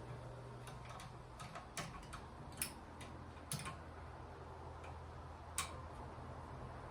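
Ceiling fan running: a faint, steady low motor hum with a few irregular sharp ticks.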